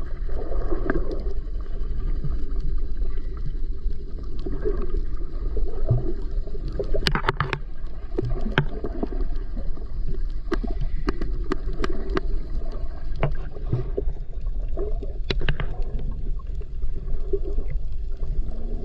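Steady low rumble of a boat out on the sea, with scattered sharp knocks, most of them in the middle and later part.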